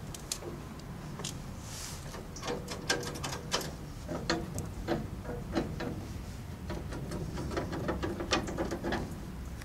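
Metal clicks and clunks from the chrome levers and valve handles on a fire truck's pump panel as they are worked by hand. The sharp knocks come irregularly from about two and a half seconds in, over a steady low rumble.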